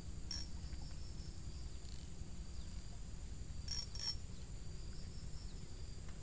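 Insects chirring steadily in high thin tones over a low steady rumble, with a few short high chirps about a third of a second in and twice around four seconds in.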